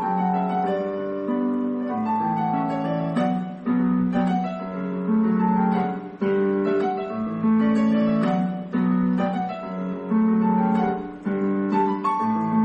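Instrumental ringtone tune: a keyboard melody of held notes over sustained chords, with no singing.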